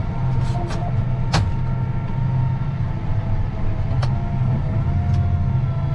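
John Deere 8270R tractor's diesel engine running steadily while pulling a seed drill, with a few sharp clicks over the top.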